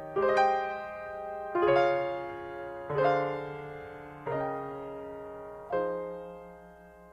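Slow piano music: five chords struck about every second and a half, each left to ring and fade; the last dies away near the end.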